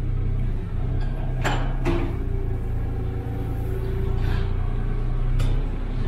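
Mini excavator's engine running steadily while its bucket pushes and spreads an unrolled round bale of straw feed. A few sharp knocks come about one and a half and two seconds in and again near the end, and a faint steady tone sounds for a couple of seconds in the middle.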